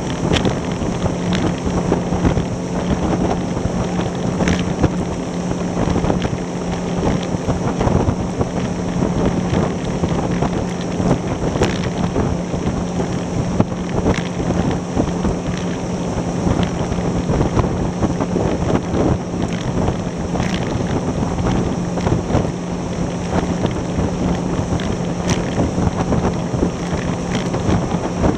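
Outboard engine of a 3D Tender Nividic rigid inflatable boat running steadily at about 34 mph, with wind buffeting the microphone. The hull slaps the small waves in short, irregular knocks.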